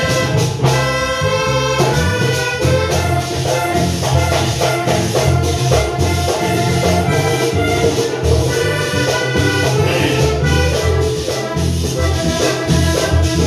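Loud Latin dance music with brass and a pulsing bass line.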